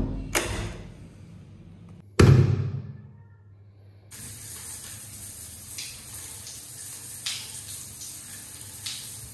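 Two loud knocks, the louder about two seconds in, as a door handle and lock are worked. Then, from about four seconds in, a shower runs with a steady hiss of falling water.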